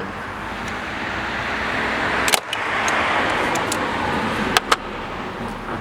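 A passing car swells and fades, with a few sharp clicks about two seconds in and twice near the end as mole grips work the spring clip off the MAF sensor's intake pipe.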